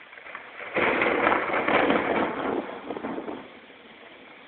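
Thunder: a sudden clap about a second in, then a crackling rumble for two to three seconds that dies away.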